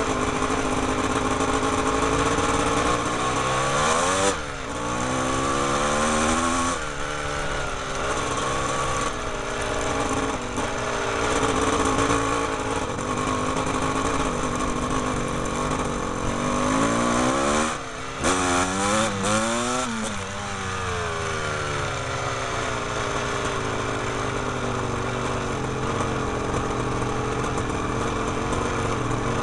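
Trail motorcycle engines running steadily. The revs drop and climb again about four seconds in, and again around eighteen to twenty seconds in.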